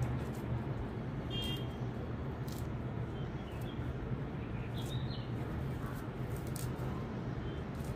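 Steady low background hum with a few short, faint bird chirps, about one and a half seconds in and again about five seconds in, and scattered light clicks.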